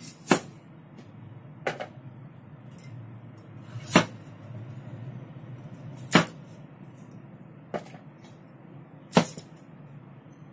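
Chinese cleaver chopping cauliflower florets off the stalk against a chopping board: five sharp knocks a second or two apart, with a fainter one between the last two.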